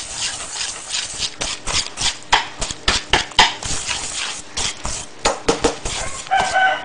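Wire whisk beating egg yolks and powdered sugar in a bowl: quick, irregular clicks and scrapes of the wires against the bowl, several a second.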